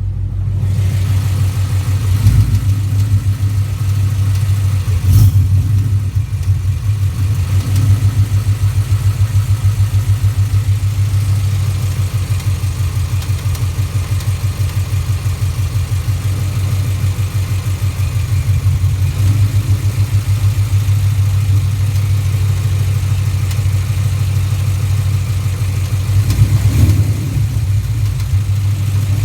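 2011 Ford Mustang GT's 5.0 Coyote V8 running steadily with a pronounced rapid tick, plus one brief sharp sound about five seconds in. The owner can't tell whether it is rod knock or valvetrain tick, and with brass-coloured flakes in every oil change he suspects a failing rod bearing.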